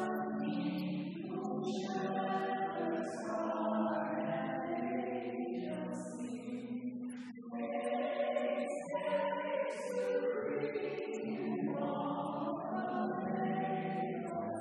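A group of voices singing a hymn together in long held notes.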